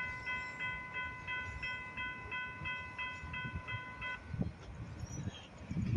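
Railroad grade-crossing bell ringing steadily, about three strokes a second, then stopping about four seconds in.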